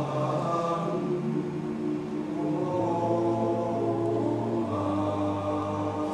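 All-male a cappella group singing slow, sustained chords, with a low bass voice holding long notes underneath. The chord changes every second or two.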